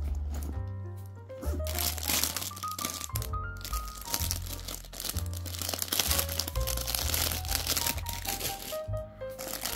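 Background music with a melody over a bass line, and clear plastic packaging crinkling as it is handled from about a second and a half in.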